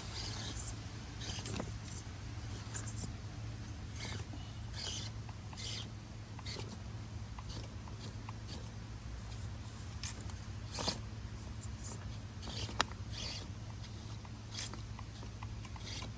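Axial AX24 1/24-scale RC crawler working over the course: irregular clicks, scrapes and scrabbling of its tires and chassis on rock and dirt over a low steady hum, with two sharper knocks around the eleven- and thirteen-second marks.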